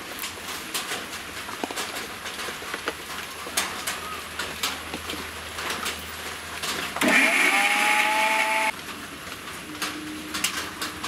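Electric kitchen mixer-grinder motor spinning up and running for about a second and a half before cutting off: a short pulse to crush coconut and cumin coarsely rather than grind it smooth. Before it, light clicks and clatter as the steel jar is handled and fitted.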